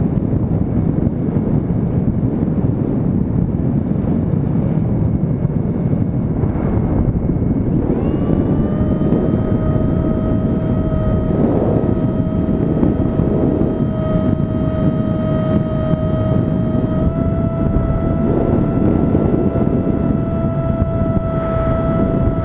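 Wind rushing over the onboard microphone of a radio-controlled model airplane in flight. About a third of the way in, the plane's motor and propeller come up to speed with a steady whine that holds to the end, stepping slightly higher in pitch about three quarters of the way through.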